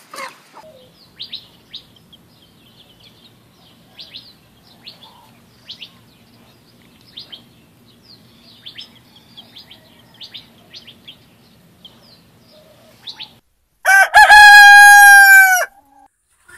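A chick peeping in short, high chirps, over and over, faintly. Then a rooster crows once, loud, a steady-pitched cock-a-doodle-doo of under two seconds about fourteen seconds in.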